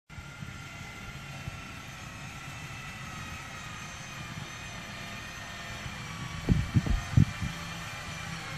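Redline Sidewinder aircraft tug running steadily as it tows a Yak-52 across grass, a mechanical hum with a low rumble and a thin whine. A few loud low thumps come close together about six and a half to seven seconds in.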